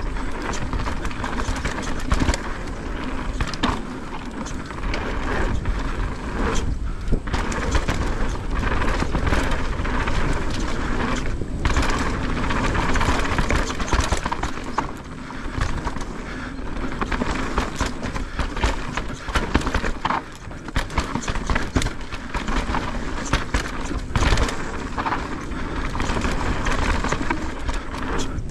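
Santa Cruz Megatower V2 mountain bike being ridden on a rough trail: tyres rolling over dirt with frequent knocks and rattles, under a steady low rush of wind on the camera microphone.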